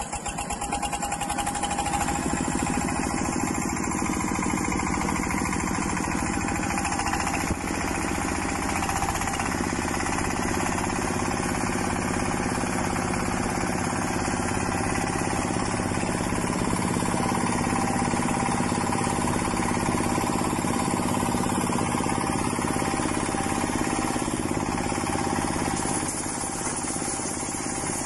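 A 16 HP single-cylinder diesel engine, just started by hand crank, running with a fast, even chugging knock. It picks up speed over the first couple of seconds, then runs steadily while powering a belt-driven corn and sorghum sheller.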